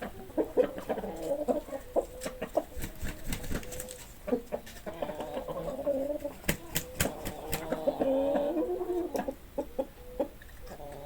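A flock of hens clucking and calling over one another, with scattered sharp taps and a quick run of clicks about two-thirds of the way through.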